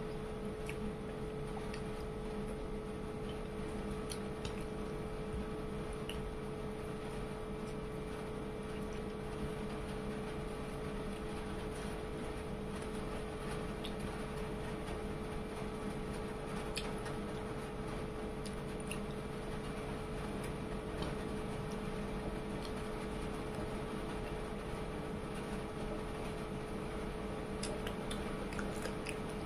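Eating by hand: faint chewing and squishing of chicken curry pulled from the bone, with scattered small clicks, over a steady background hum.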